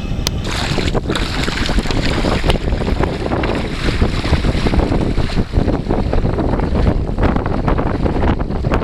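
Wind buffeting the microphone over the splashing and sloshing of legs wading through shallow water.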